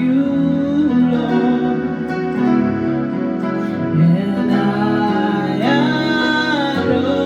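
Worship music: long held sung notes that glide slowly in pitch, over steady instrumental accompaniment.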